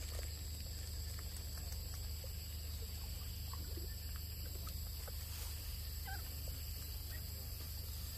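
Steady outdoor background with a constant low hum and a high steady drone, and a few faint short animal calls scattered through it, the clearest about six seconds in.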